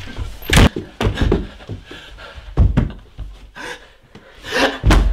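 Four loud, sudden thumps and knocks, with heavy panting breath between them.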